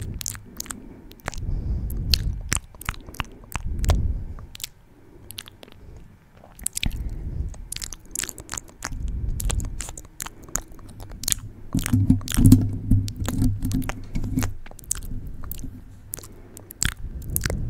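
Wet ASMR mouth sounds close to the microphone: quick, moist clicks and smacks of lips and tongue over low breathy swells. A louder low, buzzing stretch lasts about two seconds from roughly twelve seconds in.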